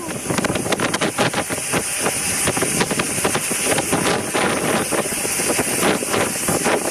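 Longtail boat under way at speed, its engine running loud, mixed with heavy wind buffeting on the microphone.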